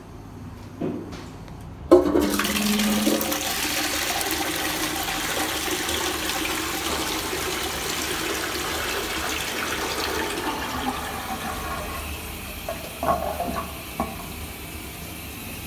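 Armitage Shanks toilet flushing. A sharp clunk of the flush comes about two seconds in, then water rushes into the bowl for about ten seconds before easing off into a quieter steady hiss, with a few short knocks near the end.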